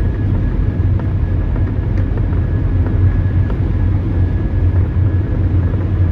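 Car driving, a steady low road-and-engine rumble that stays even throughout.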